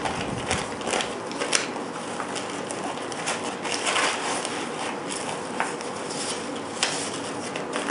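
A clear plastic zip-top bag crinkling as it is folded, then rustling and soft taps as it is tucked into the mesh pocket of a nylon kit pouch; the handling noises come irregularly, with no steady sound.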